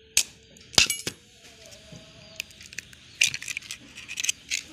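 Eggs being cracked over a plastic bowl: sharp clicks of shell, a couple about a second in, then quick clusters of taps near three and four and a half seconds in.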